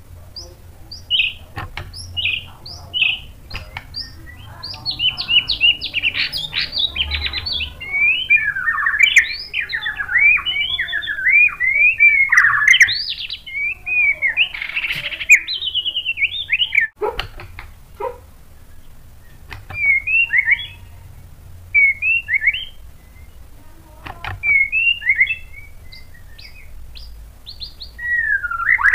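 White-rumped shama singing a varied run of quick, sliding whistled notes. The song is densest in the first half, then breaks into short phrases with pauses between them, with a few sharp clicks in the pauses.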